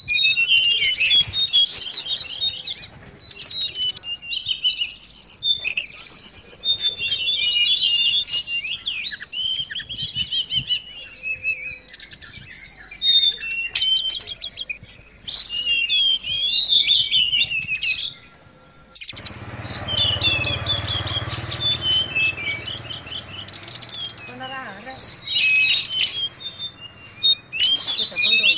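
A caged tledekan laut (mangrove blue flycatcher) singing a rapid, varied twittering song of high chirps and trills, almost without pause. The song breaks off briefly about two-thirds of the way through and then resumes over a low hum.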